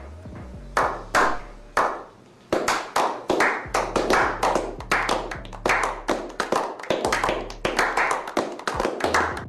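A small group of men clapping their hands in a slow clap. At first there are single claps about a second apart, then from about two and a half seconds in the clapping picks up into a quicker, steadier run of claps.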